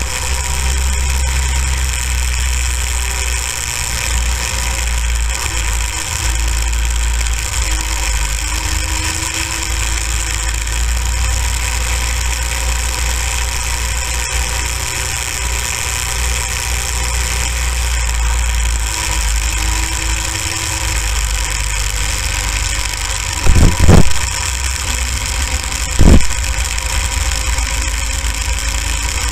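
Small go-kart engine running steadily as the kart drives on a snowy road, with a heavy low rumble from wind on the helmet-mounted microphone. Two loud thumps come near the end, about two seconds apart.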